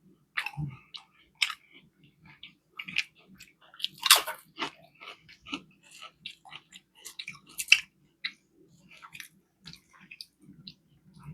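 Close-miked chewing of a fish fillet sandwich: wet mouth clicks and smacks with bites and crunches, the loudest about four seconds in and again near eight seconds.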